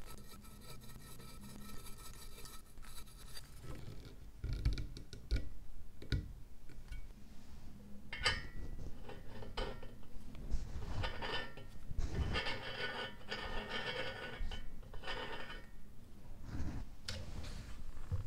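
Reassembly handling of a brass blowtorch. A screwdriver turns a screw into the handle, then a few knocks. After that comes repeated metal scraping and rubbing as the brass filler cap is fitted onto the tank by gloved hands.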